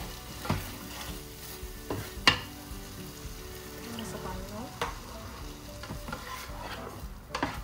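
Black plastic spatula stirring chicken in a simmering curry sauce in a Crock-Pot multicooker's nonstick pot, over a steady sizzle. A few sharp knocks of the spatula against the pot, the loudest about two seconds in, and water is poured in near the middle.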